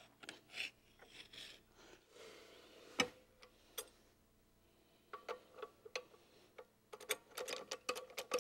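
Utility knife cutting office carpet and a metal panel lift being set against a cubicle leg: scattered scratches and clicks with one sharp knock about three seconds in. Near the end comes a fast run of light ticking clicks.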